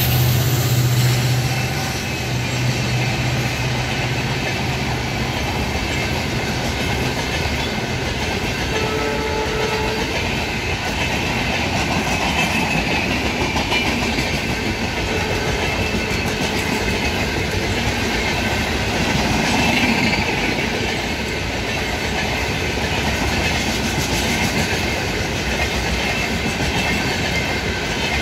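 A passing express train's LHB passenger coaches rolling by at speed, a steady rumble with wheels clattering over the rail joints. The EMD diesel locomotive's low engine drone fades out over the first few seconds as it draws away.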